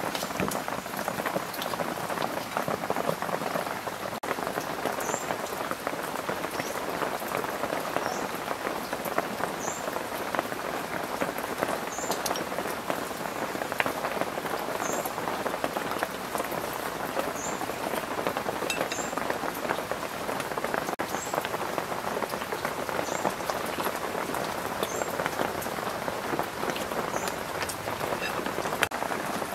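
Steady rain falling on surfaces, a dense even hiss. Faint high chirps sound every second or two through the middle of it.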